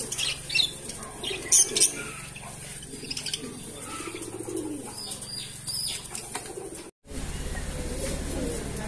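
Mookee pigeons cooing low, with a few loud wing flaps in the first two seconds. About seven seconds in the sound cuts out and gives way to a steady low hum.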